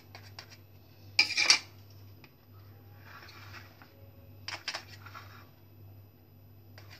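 Knife cutting through a steamed semolina cake and striking and scraping against a steel plate: a loud clatter about a second in, a softer scrape around three seconds, and a few sharp clicks near five seconds.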